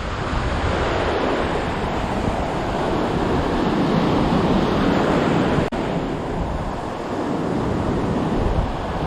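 Ocean surf breaking and washing up the beach, with wind blowing across the microphone; the sound swells and eases and drops out for an instant a little past halfway.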